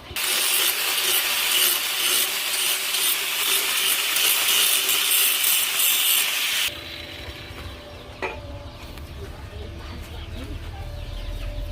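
A hand tool rasping on metal: a steady harsh noise that cuts off suddenly a little over halfway through, followed by a quieter background with a single click.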